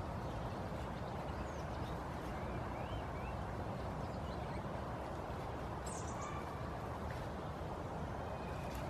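Steady rushing outdoor background noise with a few faint, short bird calls scattered through it.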